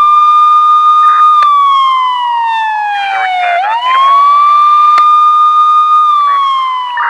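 Siren wailing in a slow rise and fall: it holds its high note, slides down, sweeps back up and holds again before sliding down a second time.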